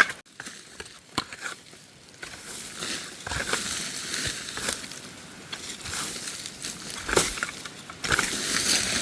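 Irregular rustling and crunching, a run of uneven crackly strokes that comes thicker after the first couple of seconds.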